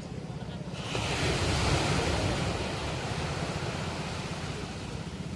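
Ocean surf: a wave breaks about a second in, its hiss swelling quickly and then slowly fading as it washes in, over a steady low rumble of the sea.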